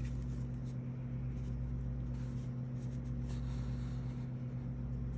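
Steady low electrical hum, with a few faint soft rustles and scratches of yarn being drawn through a crocheted piece with a needle.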